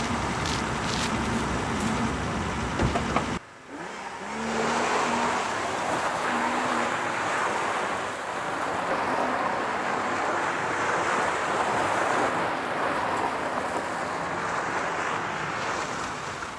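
BMW E30's straight-six engine running as the car is driven off and brought back, engine and tyre noise swelling again after a sudden break about three and a half seconds in and easing near the end.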